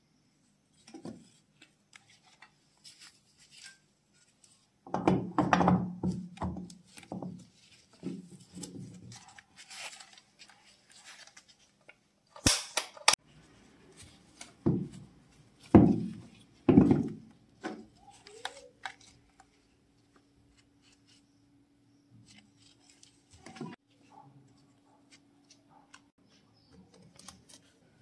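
Handling noises as a lighter's housing is put back together: a run of knocks, clicks and taps as the parts are fitted and set down on a hard table, with two sharp snaps about halfway through.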